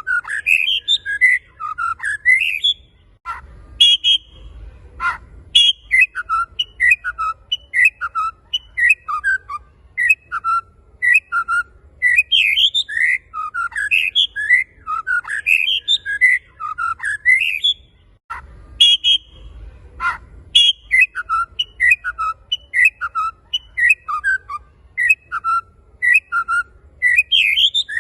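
Male white-rumped shama in full song: a rapid, varied stream of loud whistled phrases sweeping up and down, broken twice by short pauses that hold a few sharp knocks and a low rumble.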